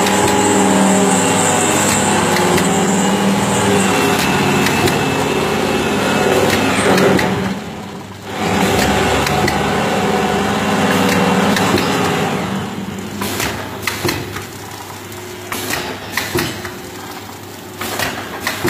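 Automatic vertical pouch-packing machine with an auger powder filler running: a steady mechanical hum with a motor whine. The sound drops out briefly about eight seconds in and comes back. After about twelve seconds it turns quieter, with separate clicks and knocks.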